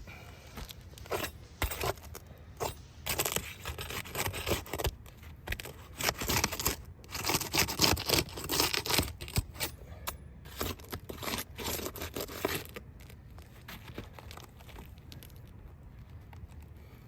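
Asphalt roof shingle being pried up and pulled loose where it is stuck down: irregular scraping and tearing, dying away near the end.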